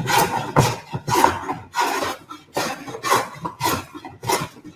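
Scrub plane cutting across a rough board face in quick diagonal strokes, about two rasping shaving strokes a second. The strokes are taking down a convex high spot to flatten the board.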